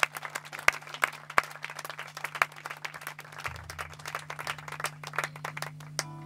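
Audience applauding: many separate hand claps that thin out over the seconds. Just before the end an amplified electric guitar starts a sustained ringing note over a steady low amplifier hum.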